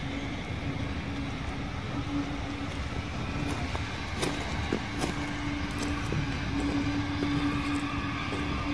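Heritage train running slowly, heard from on board: a steady rumble with a low hum that comes and goes, and a few light clicks about halfway through.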